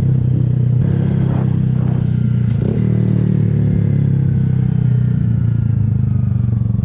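Honda Grom's single-cylinder engine running through an aftermarket Kemimoto exhaust while the bike is ridden. The engine note steps up about a second in, then slowly falls.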